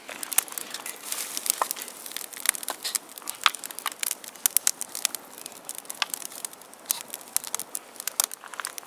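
Wood campfire crackling and popping, its split kindling burning hard under a freshly added log: a dense, irregular run of sharp snaps over a faint hiss.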